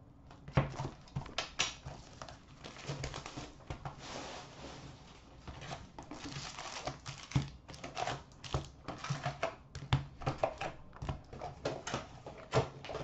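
Sealed hockey card box being opened: crinkling plastic wrap and cardboard, then foil card packs taken out and stacked, with many small taps and rustles.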